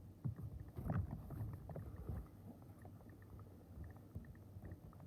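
4x4 Rubik's Cube being turned by hand: a run of soft plastic clicks and clacks as the layers turn, loudest about a second in.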